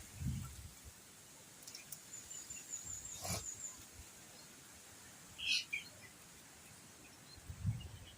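Quiet outdoor background with faint bird chirps: a short, rapid, high trill about two seconds in and a brief chirp past five seconds. A single click comes a little after three seconds.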